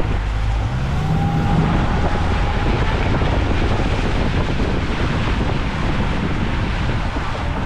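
Wind buffeting the microphone and water rushing past the hull and wake as a boat runs at speed on its Suzuki outboard, the engine's drone underneath. Loud and steady.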